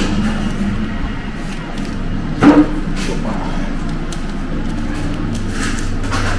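Steady low mechanical hum of room machinery, with a short loud knock about two and a half seconds in.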